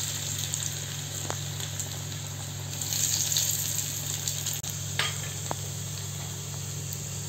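Chopped garlic and dried red chili sizzling in hot ghee in a small tadka pan on a gas flame, the tempering for dal tadka. The sizzle swells about three seconds in as more garlic goes in, with a few faint pops.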